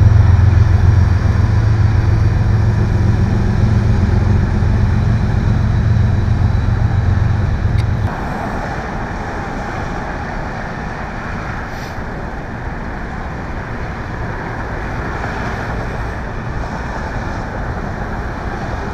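Steady low drone of heavy engines running at idle, which drops away suddenly about eight seconds in. A quieter, even rumble of engines and roadway noise follows.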